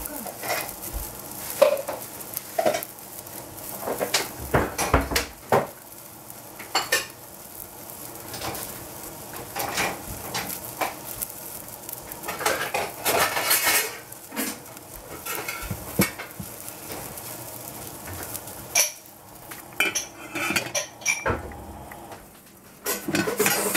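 Large-grain couscous simmering in water in a stainless steel saucepan on a gas burner: a steady bubbling hiss with irregular metal clicks and clinks, including a stainless lid set onto the pan in the second half.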